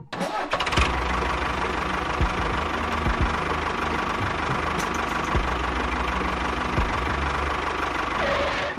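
A motor running steadily, starting just after the music stops and cutting off suddenly near the end.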